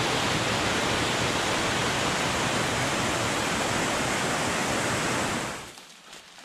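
Waterfall cascading down a rocky ravine: a steady, even rush of falling water that fades out about five and a half seconds in.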